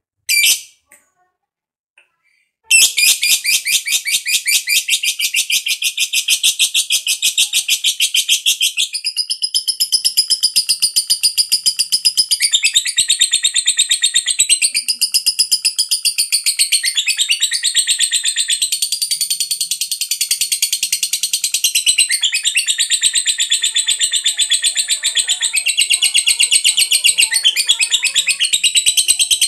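Lovebird's long ngekek: two short calls, then from about three seconds in a rapid, high-pitched chattering trill of many notes a second, kept up without a break. Such long unbroken ngekek is the song prized in a 'fighter' lovebird.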